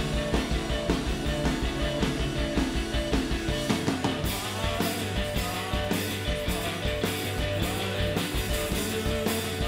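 Indie math-rock band playing live: electric guitars, bass and drums. About four seconds in the drums open up with a steady run of cymbal strokes.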